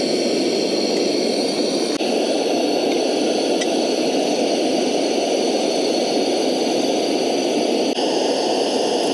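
Portable hose-fed gas stove burner running at a steady, even hissing roar under a pot of broth.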